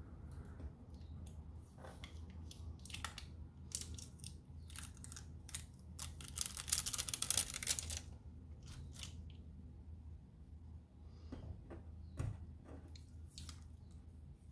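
Hands handling a Polaroid print on a wooden table: scattered small clicks and rustles, with a denser scratchy, tearing-like stretch lasting about two seconds around the middle.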